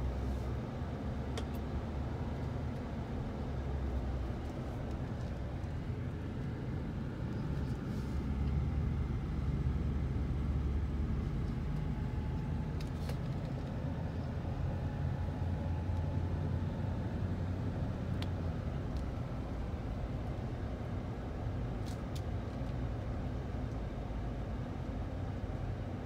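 Low, steady rumble of a car's engine and tyres heard from inside the cabin while driving, with a few faint clicks.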